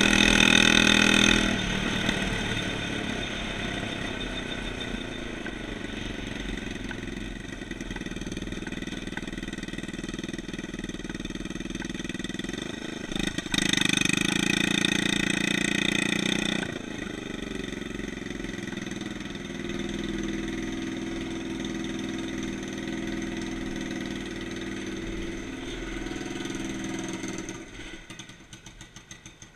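150cc shifter kart engine running hard at speed, easing off after about a second and a half, pulling hard again for about three seconds in the middle, then running softer and dying away near the end.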